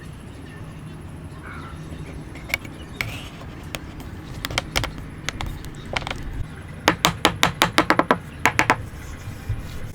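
Sharp knocks and taps of woodworking: a few scattered strikes, then a quick run of about a dozen in under two seconds near the end, over a steady low hum.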